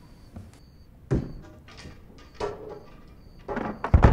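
Heavy thuds and knocks on wood: one sharp hit about a second in, a lighter one a little later, then a quick run of loud, deep bangs near the end.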